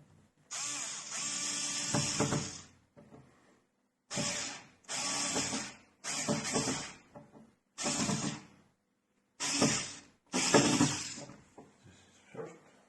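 Cordless electric screwdriver (Xiaomi Mijia) running in about seven short bursts, the first and longest lasting about two seconds.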